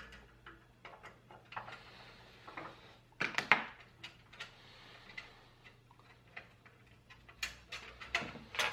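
Scattered small metallic clicks of a Phillips screwdriver turning a screw out of a PC case's expansion-slot bracket, with a brief cluster of louder clicks about three seconds in and more near the end.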